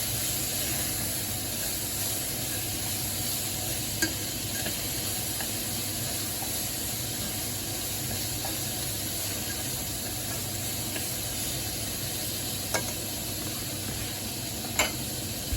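Bean sprouts sizzling in a hot frying pan as they are sautéed: a steady frying hiss. Three sharp clicks come through, one about four seconds in and two near the end.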